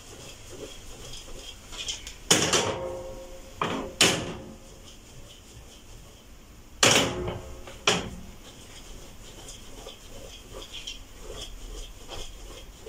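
A metal cooking pot full of rice being tossed by hand, clunking four times in two pairs, about two and seven seconds in, with a short metallic ring after some knocks and the soft shuffle of rice between.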